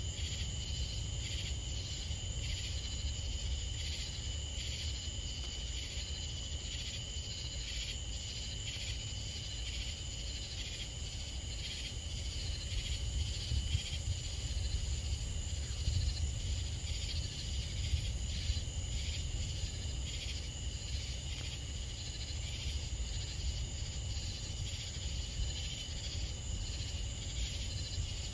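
Steady chorus of night insects singing at several high pitches at once, over a steady low rumble.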